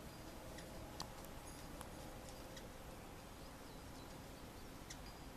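Faint, short, high-pitched bird chirps and ticks, a few scattered through, over a steady low outdoor background.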